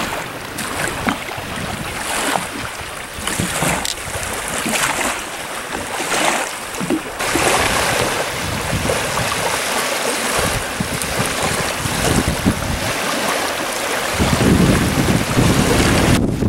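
Small waves lapping and washing up on a lakeshore, with wind buffeting the microphone; the wind rumble grows heavy near the end.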